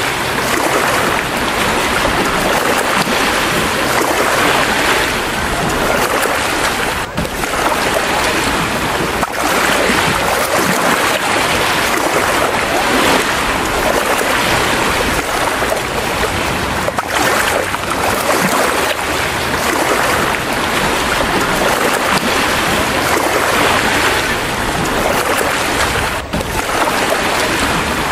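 Wave-pool waves rushing and splashing, a loud steady churn of water that rises and falls as the swells come through.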